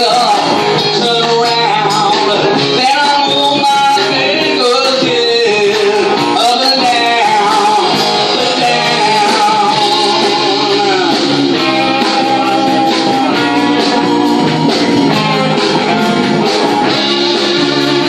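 Live rock band playing a cover song: electric guitar, bass and drums with a male lead vocal.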